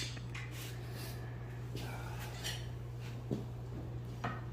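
Pine slats and wooden spacer blocks being slid along and set down on a wooden frame: a few faint knocks and scrapes of wood on wood, over a steady low hum.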